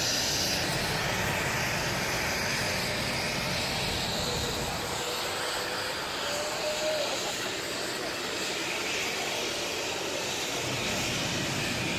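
Steady rushing noise at an even level throughout, with a faint brief whistle-like tone partway through.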